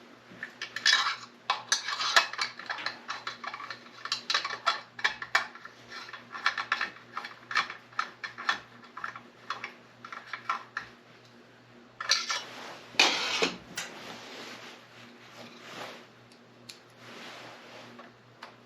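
Small metal parts, screws and hand tools clicking and clinking while a chainsaw is reassembled by hand, with a louder rummaging clatter about twelve seconds in. A faint steady hum runs underneath.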